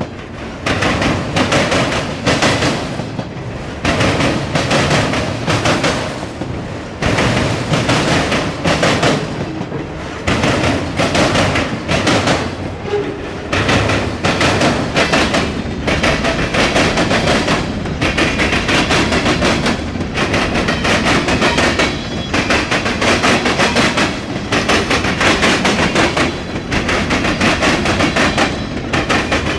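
Long mixed freight train rolling past, its car wheels clattering over rail joints in repeated loud knocks every second or two.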